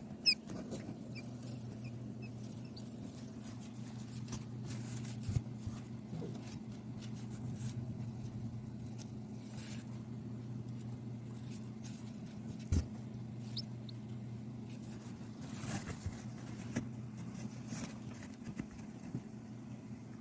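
A steady low hum with a few faint, short, high peeps from a newly hatched chick, near the start and again about two-thirds of the way through, over scattered light clicks and rustles in the straw nest.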